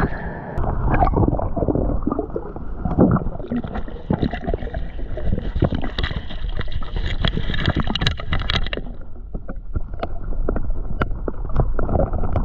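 Under water: a scuba diver's exhaled bubbles gurgling from the regulator, with many small clicks and knocks. A higher hiss joins about three and a half seconds in and stops near nine seconds.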